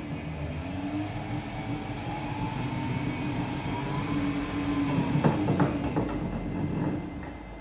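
Oscar Ehrlich metal lathe running on a frequency drive, a steady motor and gear hum with a high whine, its pitch rising slightly over the first few seconds. A short cluster of knocks comes about five seconds in, and the sound drops in level near the end.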